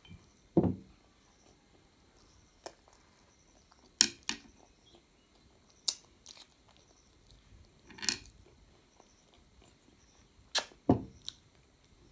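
A child slurping and chewing stir-fried noodles close to the microphone: a scattered series of short, sharp slurps, lip smacks and mouth clicks, a second or two apart.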